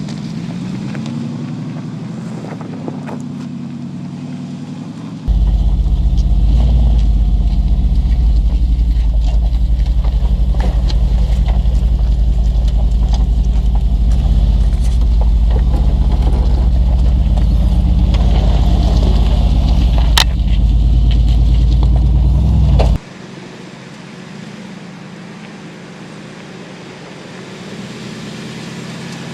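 Mercedes-Benz G500's V8 engine running at low speed, its pitch rising and falling with the throttle. From about five seconds in until near the end, a heavy low rumble sits under the engine, then cuts off suddenly.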